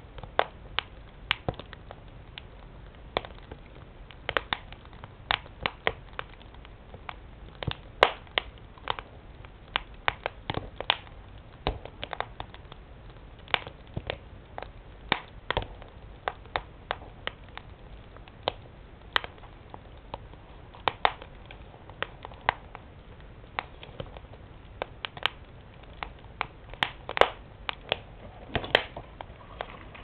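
Wood fire crackling: burning logs giving off irregular sharp pops and snaps, a few a second, some much louder than the rest.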